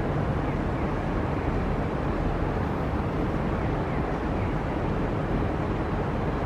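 Steady low rumble of outdoor city background noise, even and unchanging, without any distinct event.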